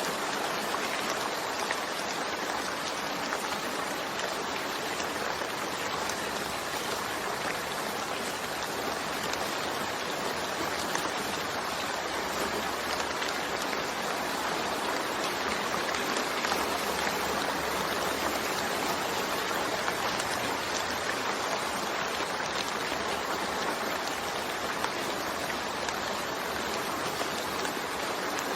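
Steady, dense rainfall: an even hiss of drops with no change in strength.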